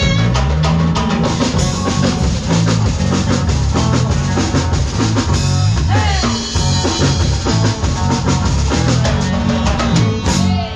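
Live band playing upbeat Latin dance music with drum kit, bass and guitar, loud and steady.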